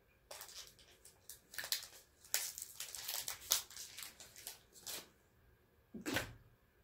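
Foil candy wrapper being torn and crinkled open by hand around a small chocolate egg, a run of quick irregular rustles and tears. About six seconds in comes one brief, louder rustle with a dull bump.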